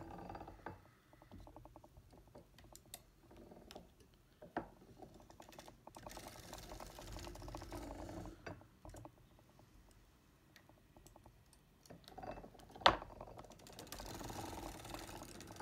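Foster Victoria vintage circular sock machine being hand-cranked to knit the heel: runs of rapid light clicking as the needles ride through the cams. One much louder sharp click comes late on.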